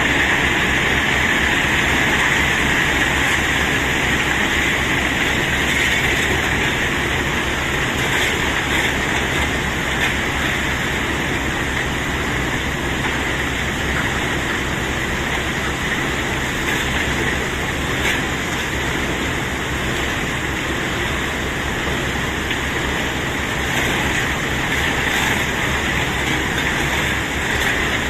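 A load of cobblestones sliding and tumbling out during unloading: a steady, dense rattling rumble that eases off a little toward the end.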